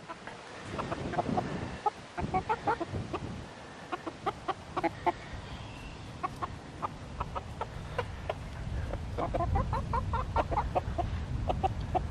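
Backyard chickens (silkies and a Wyandotte) clucking in many short, soft notes while they peck at treats on the ground.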